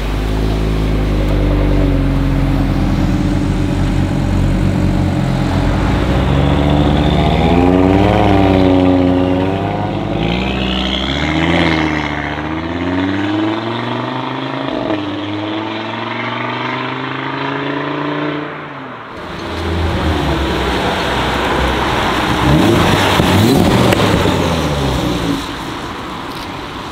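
Audi RS3 2.5-litre turbocharged five-cylinder engines pulling away and accelerating, several cars one after another, the engine note rising and falling with revs and gear changes.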